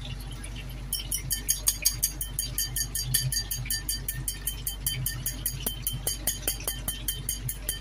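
Chopsticks beating one raw egg in a small bowl, clicking rapidly and evenly against the bowl's sides, about six clicks a second, starting about a second in.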